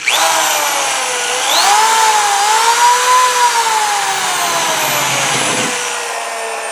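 Power drill with a countersink bit boring a screw hole through a drawer side into the particle-board drawer face. The motor whines up sharply at the start and dips in pitch as the bit bites, then slowly falls in pitch and fades.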